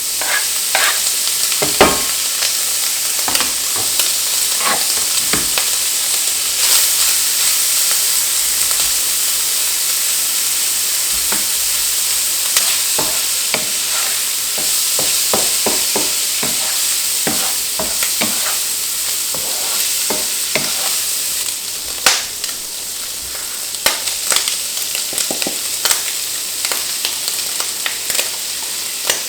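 Food frying in oil in a frying pan on high heat: a steady sizzle with frequent sharp pops and crackles.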